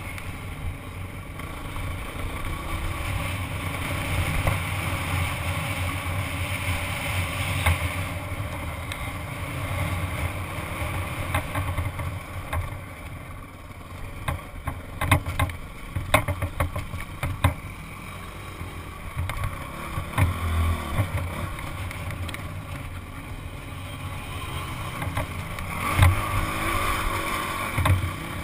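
Honda CRF dirt bike engine running as the bike is ridden over slickrock, heard from the rider's helmet camera. Several sharp knocks come around the middle, and a louder one near the end.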